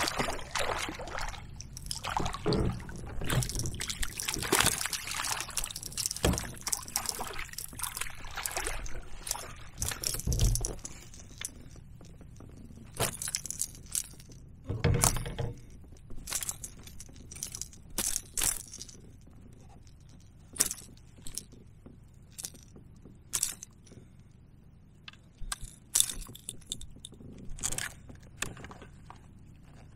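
A hooked largemouth bass splashing and thrashing at the water's surface as it is fought to the kayak, then, from about twelve seconds in, scattered knocks and clicks as it is netted and handled in a landing net.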